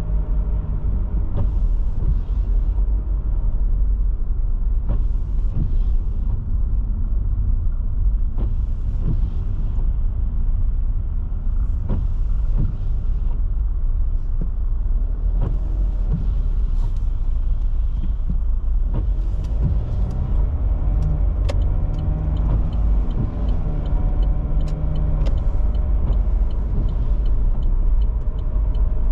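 Car cabin noise while driving on wet roads in the rain: a steady low road and engine rumble, with a hiss that swells and fades every few seconds and occasional small clicks.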